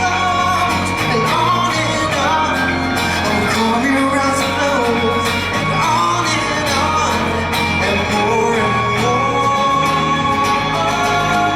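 Live band music with singing: a held, gliding melody line over steady bass and drums.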